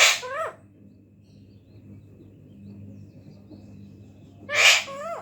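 Alexandrine parakeet imitating a sneeze twice, once at the start and once a little before the end. Each imitation is a sharp, breathy burst followed by a short pitched call that rises and falls.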